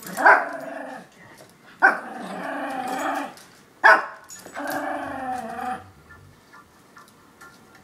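Yorkshire terrier play-growling: three sharp barks about two seconds apart, each followed by a long, wavering growl. The play growling is a sign of play, not aggression. The sound dies down about six seconds in.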